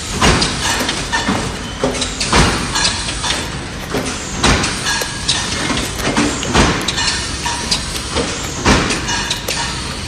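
Dragon fruit grading machine running: a continuous mechanical clatter with frequent irregular knocks from its conveyor of tilting cups.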